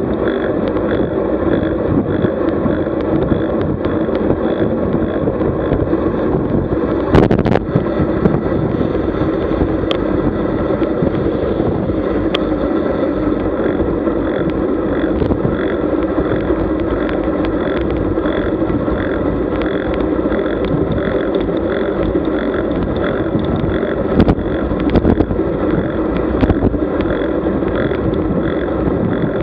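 Steady wind rush and road rumble on the microphone of a camera riding along on a road bike at speed, broken by a few sharp knocks and rattles, the clearest about seven seconds in and a couple more later on.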